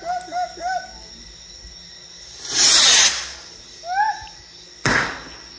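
A firework rocket going up with a short, loud whoosh about two and a half seconds in, then one sharp bang near the end, over the steady high chirring of night insects. A few short whistled calls come near the start and at about four seconds.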